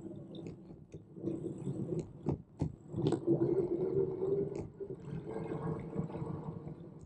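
Riding noise from a Brompton Electric folding bike in motion: a steady low rumble of wind and road with a wavering hum, broken by several sharp rattles or knocks.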